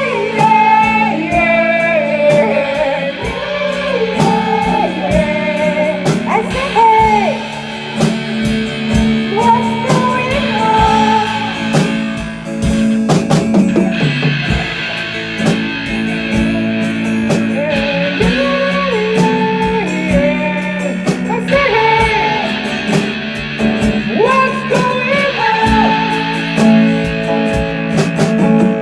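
Live band playing a rock song with guitar, drum kit and a sung melody, starting straight after a 'one, two' count-in.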